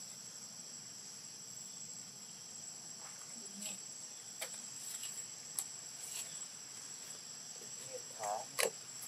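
Steady, high-pitched insect chorus of crickets or cicadas in tropical forest, with a few faint clicks and a brief short call near the end.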